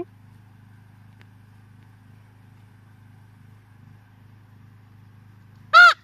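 A steady low mechanical hum throughout. Near the end a common raven gives one short, loud call that rises and falls in pitch.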